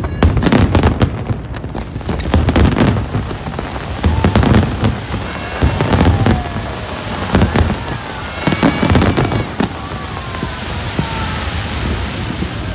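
Aerial fireworks display: a steady barrage of booming shell bursts and sharp cracks, with several whistling shells gliding down in pitch in the second half.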